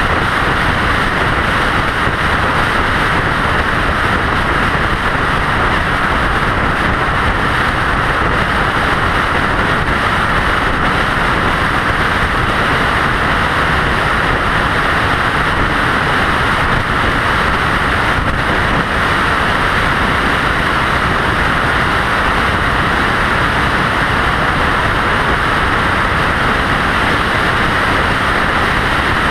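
Steady road and wind noise of a vehicle travelling at interstate highway speed, an unbroken rushing hiss that does not change.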